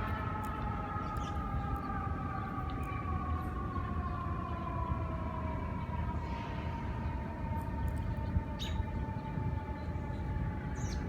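Distant siren holding one long tone of several notes that slides slowly and evenly down in pitch, over a low outdoor rumble, with a few short high chirps from birds.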